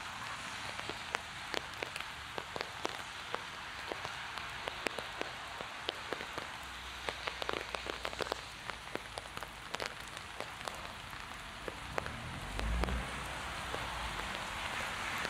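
Heavy rain falling: a steady hiss with many sharp, close drop impacts. A low rumble builds near the end.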